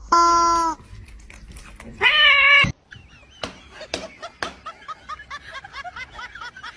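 A cat meowing loudly twice, two short calls about two seconds apart, the second higher and wavering. After them come scattered soft clicks and taps.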